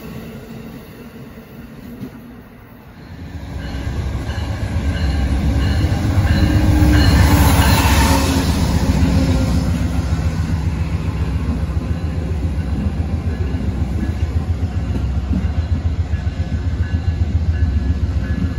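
Amtrak passenger train passing at speed close by. A fainter rumble for the first few seconds gives way to a loud low rumble about three seconds in, with a rush of air as the locomotive goes by. Then comes the steady rumble and rapid clicking of the Amfleet coaches' wheels on the rails.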